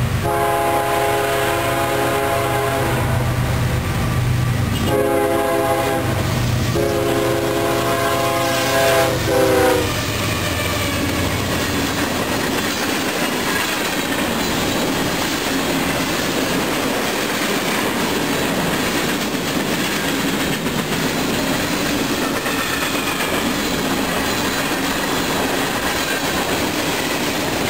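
A freight locomotive's air horn sounds three blasts at the grade crossing, the last cutting off about ten seconds in with a sag in pitch. Then the freight cars, hoppers and tank cars, roll steadily past, their wheels clacking over the rail joints.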